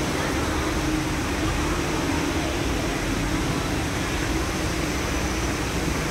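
Steady city background noise, a constant traffic-like rumble with a low hum through it and no distinct events.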